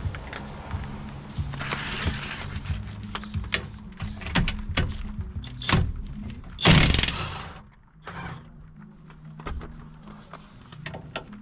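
Hand tools clicking and knocking on metal under the car, with a short, loud rushing burst about seven seconds in.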